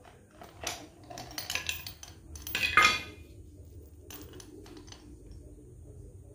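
A steel chain clinking and rattling against a steel floor anchor pot as it is worked down into the pot's T-slot: a run of metal clinks in the first half, the loudest about three seconds in.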